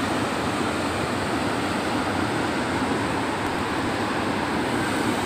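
Turbulent white water pouring fast from the sluice gates of a canal bifurcation into the channel below, a steady, even rushing noise.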